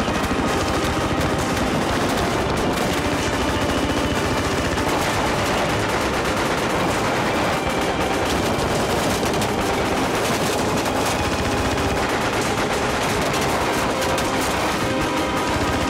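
Dense, unbroken battle gunfire: rapid machine-gun fire with single pistol shots mixed in.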